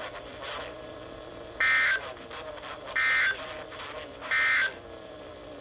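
Three short bursts of Emergency Alert System SAME digital data tones, each about a third of a second long and about a second and a half apart, over a faint steady hiss from the broadcast. This is the end-of-message code that marks the close of an alert.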